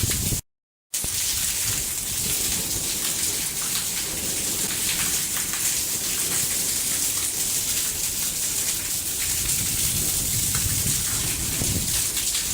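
Heavy rain pouring down in a steady, dense hiss. The sound drops out completely for about half a second near the start.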